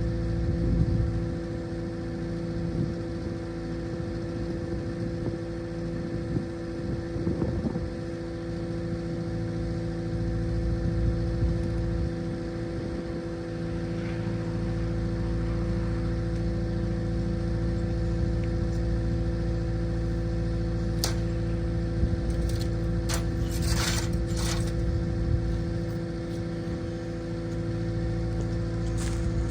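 Diesel engine of heavy equipment running steadily, with a few sharp clicks and short rattles about two-thirds of the way through.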